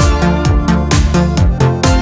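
Background electronic dance music with a steady four-on-the-floor kick-drum beat, about three beats a second, and sustained synth chords.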